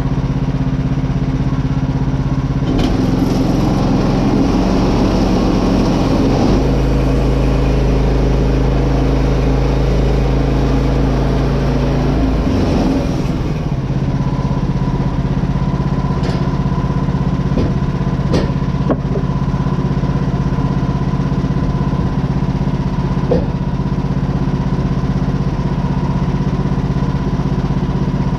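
Small gas engine of a portable bandsaw sawmill running steadily while the mill cuts tenon joinery in a timber. It is rougher and louder for several seconds near the start, then settles with a steady whine, with a few light clicks.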